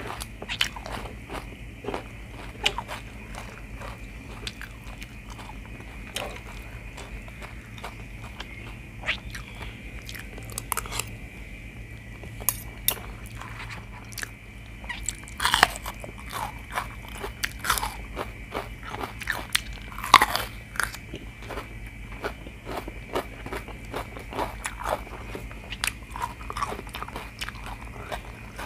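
Close-miked eating: a mouthful of spicy chicken giblets and rice being chewed and crunched, with scattered sharp clicks from the spoon and fork. A few louder crunchy bites come around the middle.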